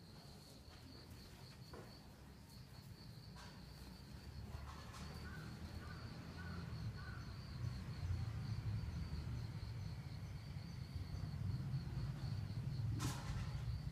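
A steady, high, evenly pulsing insect trill over a low outdoor rumble that grows louder partway through. A few short chirps sound about five to seven seconds in, and a short burst of noise comes near the end.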